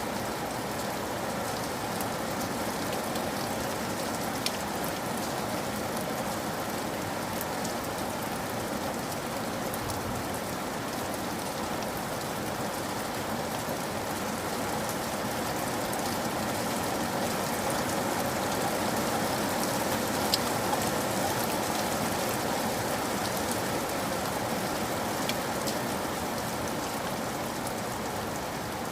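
Steady rain falling: a dense, even hiss with scattered individual drops ticking, growing a little louder in the second half.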